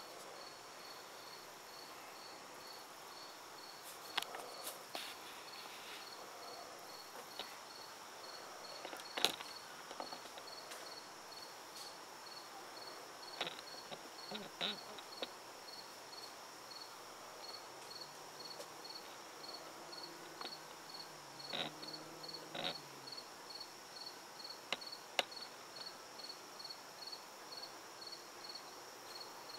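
Crickets chirping steadily, a high chirp repeating about twice a second over a continuous high insect trill, with a few scattered sharp clicks.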